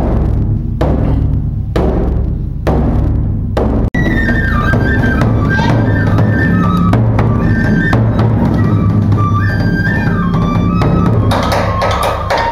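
Large taiko drum on a stand struck with sticks, single heavy beats about once a second. About four seconds in, a transverse flute melody begins over the drumming, moving in steps between held notes.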